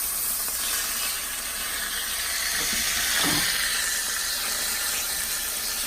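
Chicken frying in a pan, a steady sizzling hiss.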